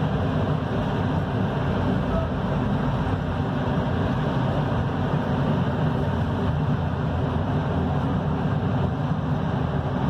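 Steady running noise of a passenger train heard from inside the carriage: wheels rolling on the rails with a continuous low rumble.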